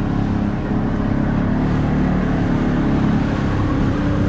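Small boat's motor running steadily under way, a low even hum over the rush of the hull through the water.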